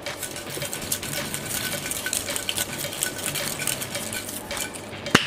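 Metal cocktail shaker tin being shaken hard: a fast, continuous metallic rattle and clatter, ending with a single sharp clack near the end.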